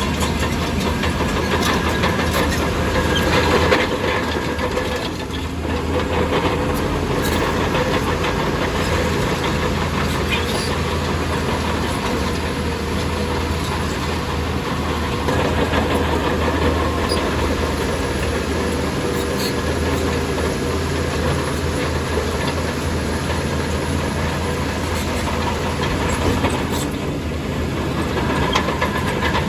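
Heavy diesel earthmoving machinery working: a steady engine hum under load with scattered light clanks, most likely a crawler bulldozer pushing sand.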